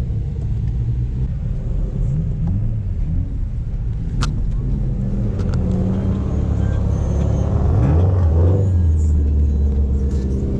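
Dodge Charger's Hemi V8 heard from inside the cabin, running steadily as the car rolls slowly along. About eight seconds in the engine speed rises briefly, the loudest part. A single sharp click comes about four seconds in.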